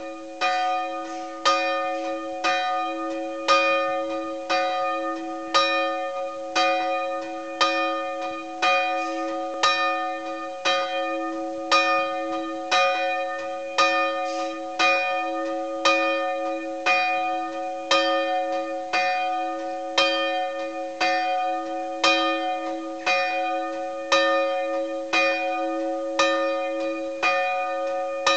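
Church bells ringing in a steady peal, about one and a half strokes a second, each stroke's tone humming on into the next.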